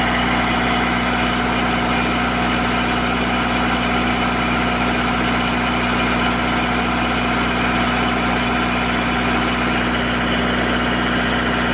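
12 kW Wanchai diesel standby generator running steadily at constant speed, an even engine drone with a low hum.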